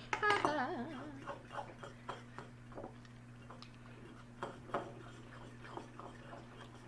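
Goopy homemade borax-activated slime being squeezed and pulled with the fingers, giving off small, irregular sticky clicks and pops.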